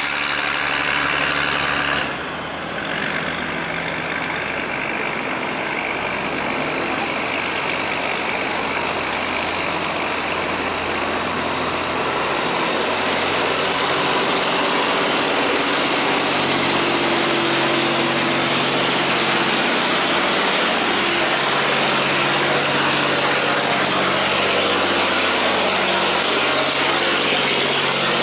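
Tugboat engine running steadily under load while towing a barge. About two seconds in, a high whine glides down in pitch and the level briefly dips, then the engine keeps running with more hiss.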